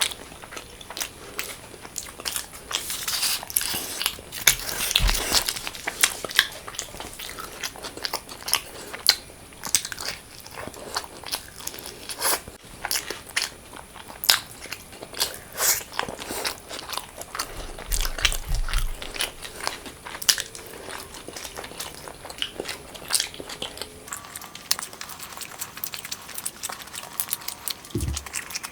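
Close-miked eating: a person biting into and chewing food, with many short, sharp crunching clicks and mouth sounds. A single low thump comes near the end.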